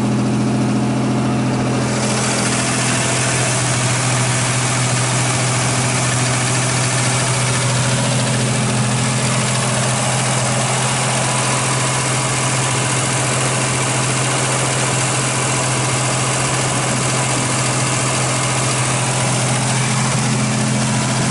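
1986 Buick Grand National's turbocharged 3.8-litre V6, freshly rebuilt, running steadily at a fast idle of about 1,700 rpm to warm up on its first start. More hiss comes in about two seconds in.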